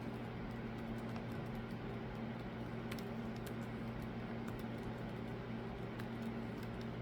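Birds pecking at seed, a scatter of light irregular ticks and taps over a steady low hum.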